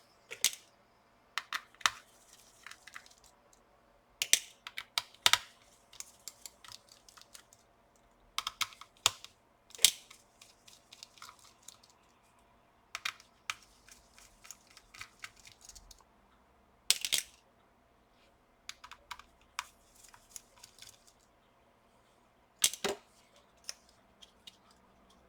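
Small sharp clicks and taps in irregular clusters from a screwdriver working the screws that hold a laptop's cooler.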